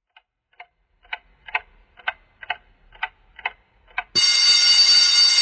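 Wall clock ticking, about two ticks a second, growing louder. About four seconds in, a loud steady ringing sound cuts in suddenly.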